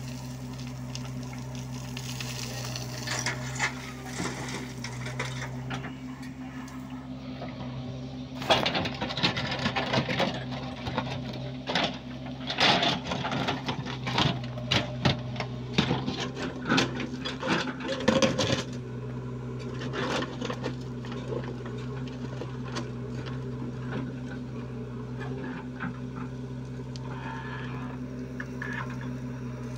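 JCB 3DX backhoe loader's diesel engine running steadily. For about ten seconds in the middle, the bucket digs into stony earth with a rapid clatter of scraping and knocking rocks.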